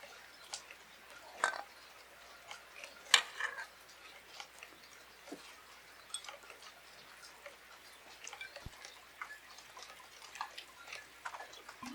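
Irregular light taps and clicks, the loudest about three seconds in.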